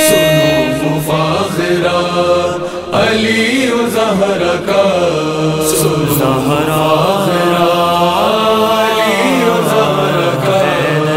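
Vocal chorus chanting an Urdu manqabat refrain a cappella, melodic sung lines over a steady low hummed drone.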